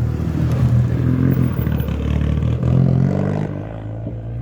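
Rally car's engine running hard on a special stage, revving up in pitch about two to three seconds in, then falling off and sounding duller near the end.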